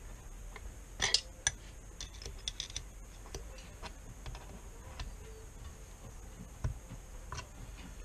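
Irregular light metallic clicks and taps of a spanner on the bolts of a metal base plate as they are being tightened, with two sharper clinks about a second in and scattered ticks after.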